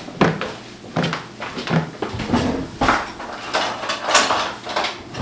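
Kitchen clatter: a series of irregular knocks and rattles from drawers and utensils as someone rummages at the counter for a ladle.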